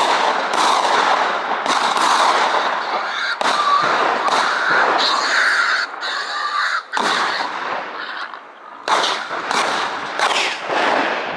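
A rapid, irregular volley of about a dozen gunshots, each cracking out and ringing off in an echo, as hunters fire at wild boar breaking from cover.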